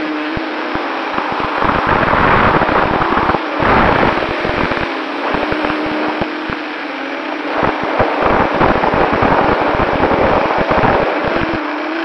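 Drone's electric motors and propellers whining steadily, heard through the onboard action camera's microphone, twice swelling into loud rushing and low buffeting wind noise for a few seconds each.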